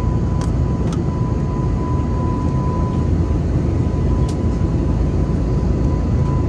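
Airliner cabin noise during the climb: the steady low roar of the engines and rushing air, with a thin steady tone held above it. A few light clicks come in the first second and again about four seconds in.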